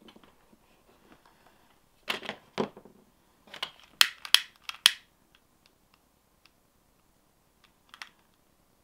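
Two short scratchy rasps about two seconds in, then a quick run of sharp clicks and a last click near the end: a small lighter being struck and lit, and small tools handled on a tabletop, while working on a plastic drinking straw.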